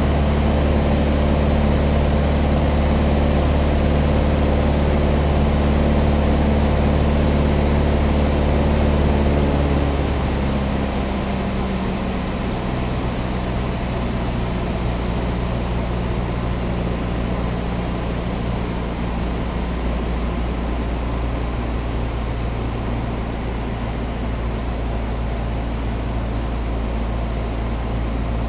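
Small propeller plane's engine and propeller heard from inside the cabin, running steadily at cruise power. About ten seconds in the engine note drops in pitch and gets a little quieter as power is pulled back in the landing pattern, then holds steady at the lower setting.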